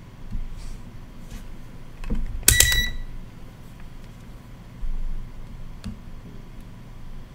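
Multimeter probe tips clicking against a circuit board, with a short, high electronic beep about two and a half seconds in, from a digital multimeter. A dull knock follows about two seconds later.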